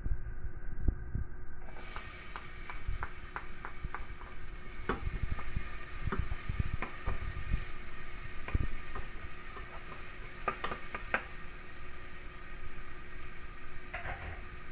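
Food sizzling in hot oil in a stainless steel pot as a wooden spoon stirs it, with a run of light knocks and scrapes of the spoon against the pot.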